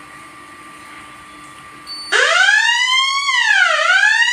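Fire alarm panel's electronic siren set off by a smoke detector sensing cigarette smoke, starting suddenly about two seconds in and wailing loudly, its pitch rising and falling about every second and a half: the panel signalling a fire.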